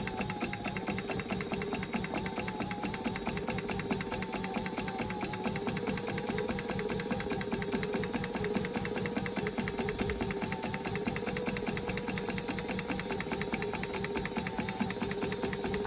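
Sailrite Fabricator industrial walking-foot sewing machine stitching at a steady speed: a rapid, even run of needle strokes over the motor's hum. It is sewing 2-inch heavy-duty nylon webbing down through five layers of heavy canvas. It stops near the end.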